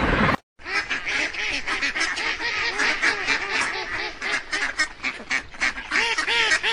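Ducks quacking: many short calls in quick, uneven succession.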